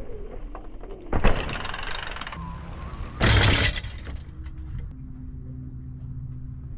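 Electric mountain bike being ridden hard: a sharp thud of a landing about a second in, rough tyre and frame noise, then a loud clattering burst a little after three seconds, followed by quieter rolling with a faint steady hum.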